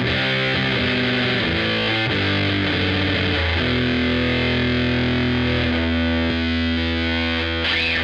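Squier VM Jazz played through the Killer Otter Electric Party Animal fuzz pedal into an AC30 amp modeler, heavily distorted. A run of short notes, then a long held low note from about three and a half seconds in, with more held notes ringing over it near the end.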